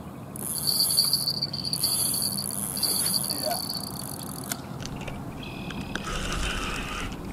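Electronic bite alarm on a carp rod sounding a continuous high tone for about four seconds, broken briefly partway, as a fish runs with the bait; the run ends with the fish getting off. A shorter, lower-pitched tone sounds near the end.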